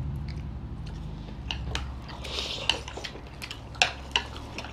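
People chewing momos and eating with chopsticks, with scattered light clicks of the chopsticks against ceramic bowls and plates over a steady low hum.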